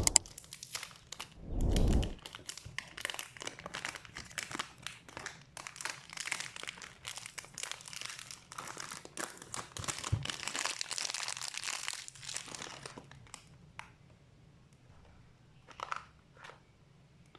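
Plastic packaging being crinkled and torn open by hand, a dense crackling rustle that dies away about thirteen seconds in, with a few faint rustles later. Two dull thumps of handling sound near the start, the loudest sounds in the stretch.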